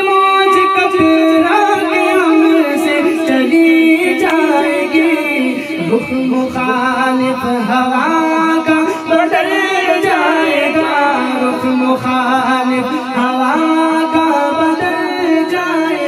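A male reciter sings an Urdu devotional kalaam into a microphone, holding long, drawn-out notes that step up and down in pitch, with a wavering run of ornaments near the middle.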